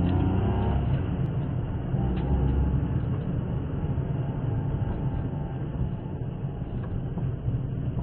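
A car's engine and road noise as heard by the dashcam inside the car, driving slowly: a steady low rumble, with the engine note shifting in pitch in the first second.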